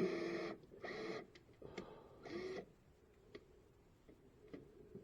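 Electric drill drilling a pilot hole in metal: the motor whine stops about half a second in. Two short trigger bursts follow, near one second and near two and a half seconds, each spinning up in pitch. Then only faint ticks are left.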